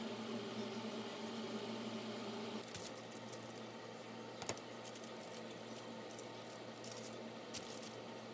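A steady appliance hum stops after about two and a half seconds. Then aluminium foil crinkles and rustles as it is handled, with a few sharp clicks and crackles, the loudest about four and a half seconds in.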